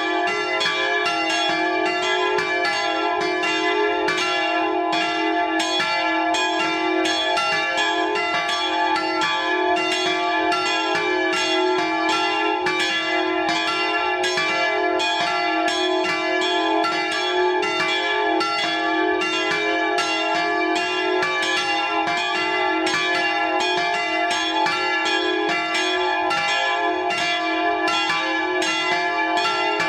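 Peal of three bronze church bells tuned d2, f2 and g#2 (cast by Fischer of Trnava in 1892 and 1922), swinging and ringing together, heard close up inside the belfry. Their strokes overlap a few times a second over a steady, continuous hum of bell tones.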